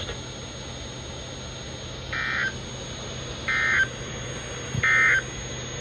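NOAA Weather Radio sending the EAS/SAME end-of-message digital data burst three times: three short, buzzy bleeps about 1.4 seconds apart, over steady radio hiss and hum. The bursts mark the end of the test alert message.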